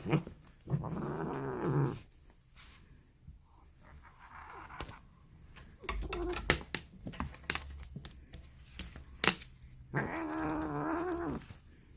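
Polydactyl domestic cat making weird, drawn-out vocal calls. Two clear calls about a second long, one early and one near the end, with a fainter one in between and scattered small clicks.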